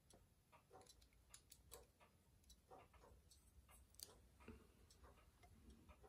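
Faint, irregular light clicks and ticks of small brass watch-case parts and tools being handled on a workbench, with soft rubbing between them.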